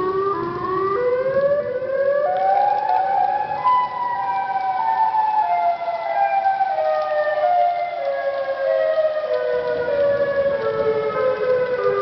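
Outdoor tornado warning siren sounding; its pitch climbs over the first few seconds, then falls slowly for the rest of the time.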